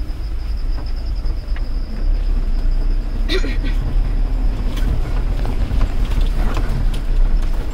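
A car driving slowly over a rough, rutted dirt track, heard from inside the cab. Its engine and tyres make a steady low rumble, with scattered knocks and rattles as it bumps along, and a louder jolt about three seconds in.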